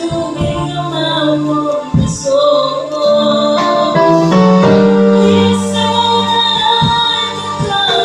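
Live gospel worship song: a woman leads the singing over a small vocal group, with keyboard chords and drum hits underneath.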